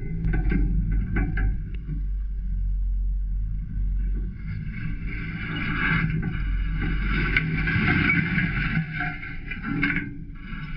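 A motor running continuously with heavy low rumble on the microphone; a higher, many-toned drone swells in about four seconds in and stays to near the end.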